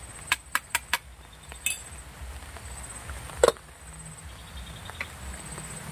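Dishes and utensils clinking during a meal. A quick run of four light clinks comes about a quarter second apart, then another about two seconds in and a louder knock about three and a half seconds in.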